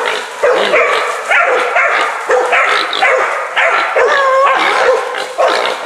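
Several young dogs baying a wild hog: rapid, overlapping barks with no break, the dogs holding the hog at bay.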